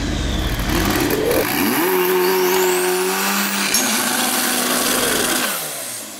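Car engine revving up about a second and a half in, held at high revs for a few seconds with a thin rising whine above it, then dropping away near the end.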